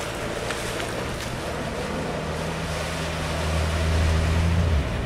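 Off-road 4x4's engine running under load as it pushes through a deep river ford, over the rush and splash of its bow wave. The steady engine hum grows louder, then drops away abruptly near the end.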